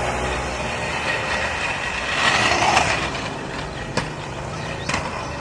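Aggressive inline skate wheels rolling on pavement, with a louder scrape a couple of seconds in and two sharp knocks near the end.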